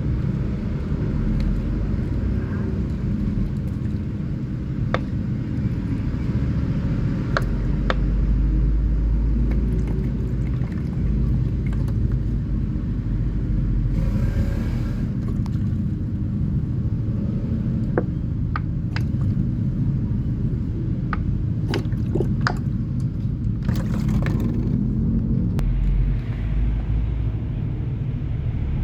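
Mini washing machine running: a steady low rumble and motor hum, with scattered sharp knocks from something tumbling in the drum.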